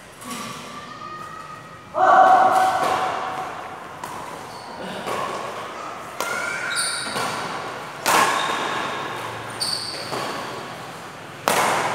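Badminton rally: racket strings hitting the shuttlecock about six times, sharp smacks every second or two that echo in a large hall, with short high squeaks of shoes on the court floor.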